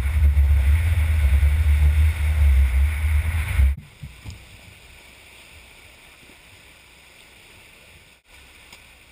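Wind buffeting the microphone over waves breaking on a sandy shore, loud and rumbling, then cutting off suddenly a little under four seconds in to a faint, steady wash of surf.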